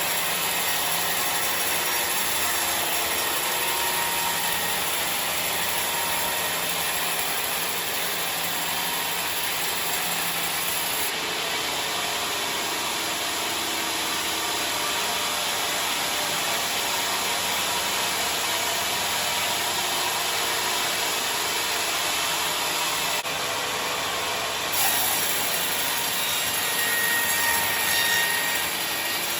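Sawmill band saw running and cutting through a large log: a steady, dense mechanical noise.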